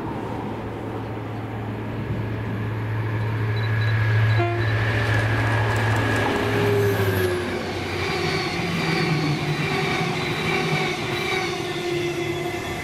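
Class 73/9 electro-diesel locomotive running on its diesel engine as it approaches and passes, a steady low drone that grows louder and ends about seven seconds in. Its train of sleeper coaches then rolls close by.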